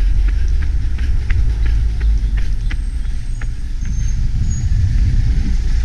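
A runner's footsteps on paving, about three quick steps a second, over a heavy low rumble of wind and jostling on a body-worn action camera.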